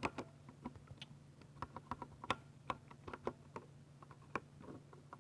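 Typing on a Ducky 60% mechanical keyboard with silver linear switches: irregular, quick key clicks, sometimes in short runs, over a faint steady low hum.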